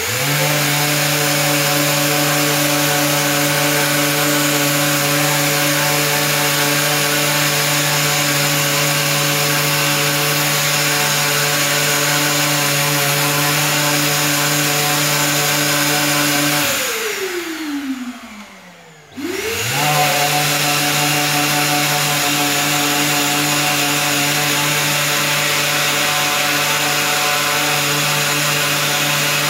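Orbital sander running at steady speed, sanding plastic body trim. It winds down with a falling pitch about seventeen seconds in and spins back up about two seconds later.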